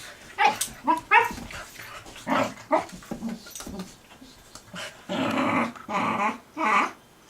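Two puppies, a boxer and a shepherd, play-fighting: growls, yips and grumbles in quick short bursts, with longer growls about five to seven seconds in.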